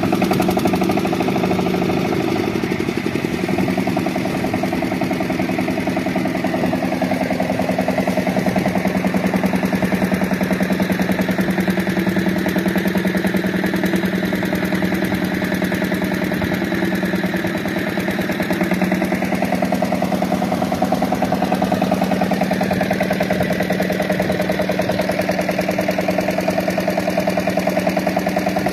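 Single-cylinder Lister-type stationary diesel engine running steadily with an even beat, driving a centrifugal water pump for irrigation.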